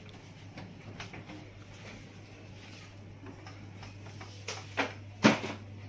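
Epson L3210 ink-tank printer running a head-cleaning cycle: a steady low hum with faint ticking. A few sharp knocks come near the end, the loudest about five seconds in.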